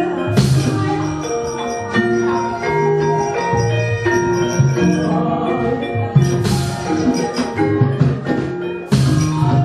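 Javanese gamelan playing fast battle accompaniment, its bronze metallophones and gongs ringing changing notes. Sharp metallic clashes from the puppeteer's kecrek plates cut through once near the start and several times between about six and nine seconds in, marking the puppets' blows.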